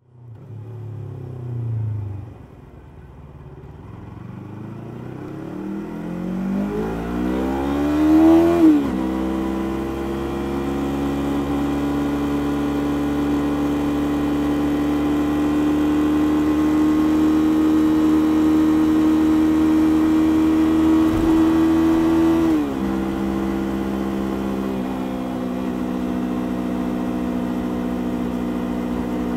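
Stock Yamaha YZF-R3's 321 cc parallel-twin engine and exhaust on the move. The revs climb steeply for the first eight seconds, and the note falls sharply about eight and a half seconds in. It then holds a steady, slowly rising note until it falls again about three quarters of the way through, with one more small drop near the end.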